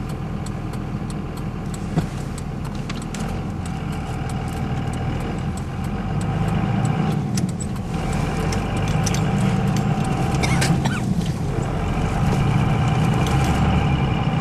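Car running along a snow-covered road, heard from inside the cabin: a steady engine and tyre rumble with a light ticking, a sharp click about two seconds in, and the engine growing louder from about six seconds in.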